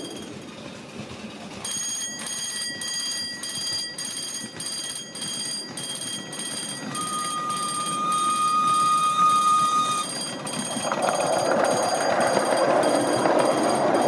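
A miniature-railway locomotive sounds one steady whistle lasting about three seconds as it approaches, then from about eleven seconds in the train passes close by, its wheels running loudly on the rails.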